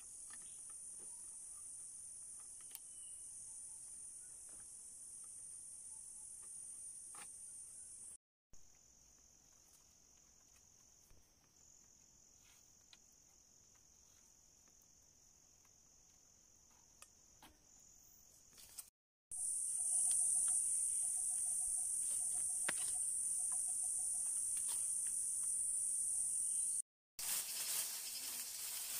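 Steady, high-pitched insect chorus of crickets, dropping quieter and lower about eight seconds in and coming back louder about nineteen seconds in. Faint clicks and knocks from poles being handled and lashed together.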